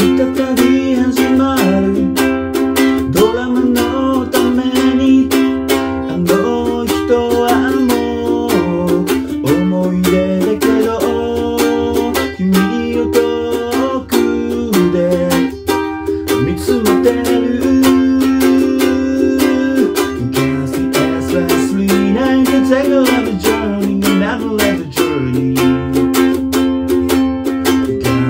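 Ukulele playing an instrumental passage of a song cover, with quick strummed chords and a picked melody line.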